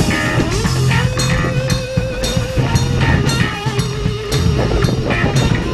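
Background rock music with a steady drum-kit beat and guitar, with a couple of long held notes.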